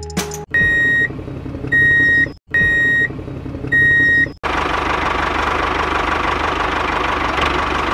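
Tractor engine running, with four short high-pitched horn beeps in the first half. After about four and a half seconds the engine sound goes on steadily alone.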